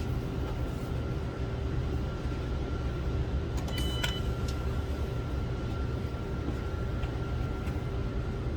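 A few clicks and a short high beep about four seconds in as the car's ignition is switched on, over a steady low hum and a faint steady whine.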